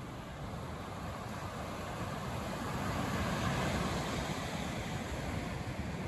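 Ocean surf washing on the beach, a steady rush that swells for a couple of seconds around the middle, with wind buffeting the microphone.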